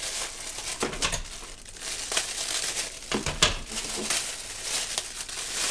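Clear plastic packaging bags crinkling and rustling as hands unwrap a small tripod and its parts, with a couple of sharper crackles about a second in and past the middle.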